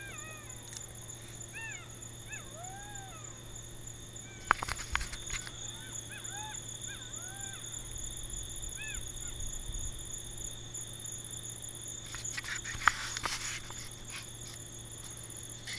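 Golden jackals howling in chorus: many short wailing calls, each rising and falling in pitch, overlapping for the first nine seconds or so and then dying away. Sharp knocks break in about four and a half seconds in, and a burst of clicks and rustles comes near the end of the calling, the loudest about thirteen seconds in.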